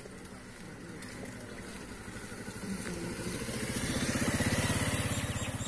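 A motorcycle approaching and passing close by. Its engine gets steadily louder, peaks about four to five seconds in, then begins to fade.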